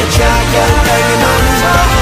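Pop music with a steady beat and a melody over it.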